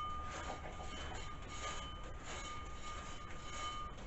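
Homemade 2x72 belt sander running with a fine 800-grit belt: a steady mechanical rushing noise with a thin whine. The owner takes it as a sign that something's not quite right, possibly a part that isn't tight.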